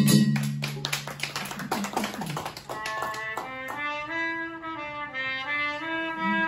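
Chindon band music: a last stroke of the chindon drums and gong rings out, followed by quick light taps. About two and a half seconds in, a wind instrument begins a slow melody of held notes.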